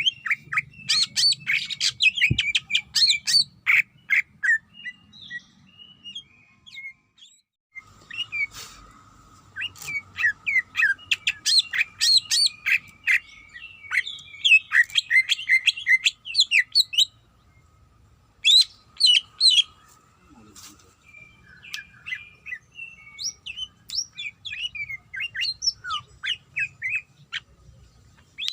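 Cucak ijo (green leafbird) singing: rapid bursts of sharp, high chirps and trills with short pauses between the phrases.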